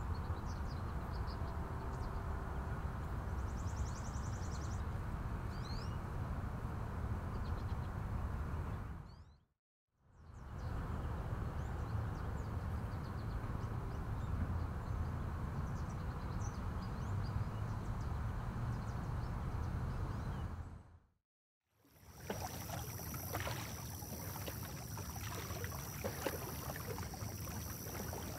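Outdoor ambience: a steady low rumbling noise with scattered faint bird chirps. It fades out to silence twice and comes back. In the last stretch the noise carries a steady high whine and many irregular small clicks.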